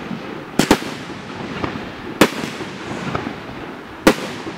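Aerial fireworks shells bursting with sharp bangs: a quick double bang about half a second in, another about two seconds in and a third near the end, with fainter pops between.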